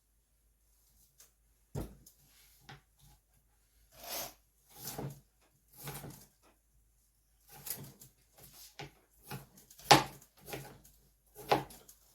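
Irregular knocks of a kitchen knife on a cutting board as pears are diced, roughly one every half second to a second, with one louder knock near the end.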